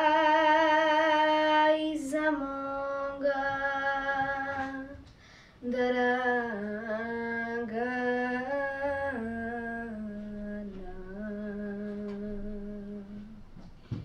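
A girl singing a Serbian folk song unaccompanied: long held notes with vibrato, in phrases that step down in pitch, the last held note ending shortly before the close.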